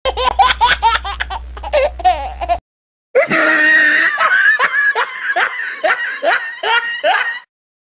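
Hearty laughter in two stretches, broken by a short silence about two and a half seconds in. The second stretch is a run of quick 'ha-ha' pulses, each falling in pitch.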